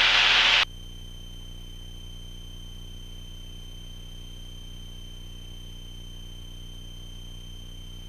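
Aircraft intercom and radio audio: a loud burst of radio static cuts off suddenly under a second in. It leaves a steady, faint high-pitched electrical whine over the low hum of the engine.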